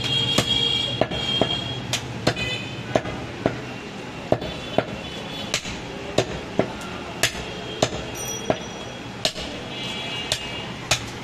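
A large butcher's knife chopping goat chest meat and bone on a round wooden log block: sharp, evenly paced chops about twice a second. Faint high tones sound in the background near the start and again near the end.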